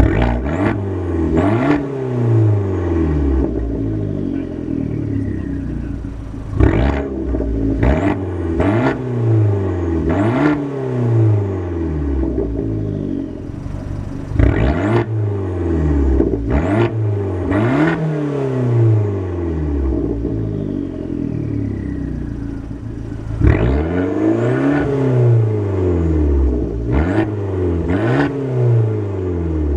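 2013 Fiat 500 Abarth's turbocharged 1.4-litre MultiAir four-cylinder being revved in place through its dual exhaust. Quick blips come in four groups, each rev rising and falling back, with idle between the groups and a sharp snap at the start of several revs.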